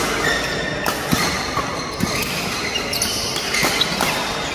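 Badminton rally: rackets smashing and driving the shuttlecock back and forth in sharp hits about once a second, echoing in a large sports hall.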